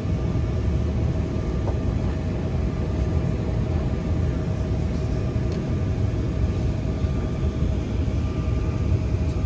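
Airliner cabin noise: a steady low rumble of engines and air, with a faint steady hum running through it.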